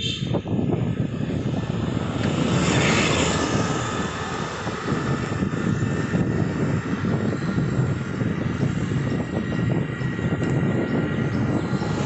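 Wind rushing steadily over the microphone while cycling along a paved road, a dense low rumble that turns briefly hissier about three seconds in.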